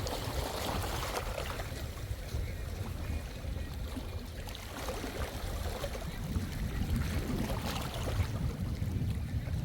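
Sea water washing and lapping in the shallows, a few soft washes a few seconds apart, with wind rumbling on the microphone.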